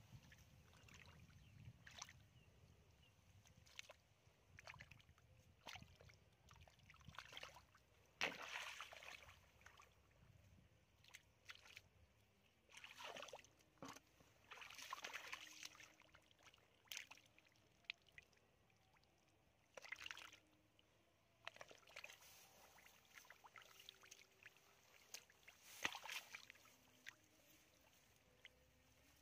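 Faint, intermittent sloshing and squelching of wet paddy mud and shallow water as a person wades and gropes in it by hand for fish. The short splashes come every second or two, with quiet between them.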